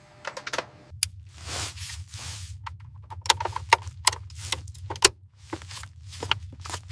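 Cables and plug connectors being handled: scattered sharp clicks and short rustles, over a low steady hum that comes in about a second in.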